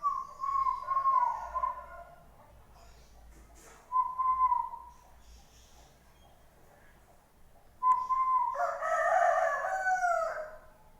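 A rooster crowing three times: a call at the start, a short one about four seconds in, and a longer crow near the end that falls in pitch as it finishes.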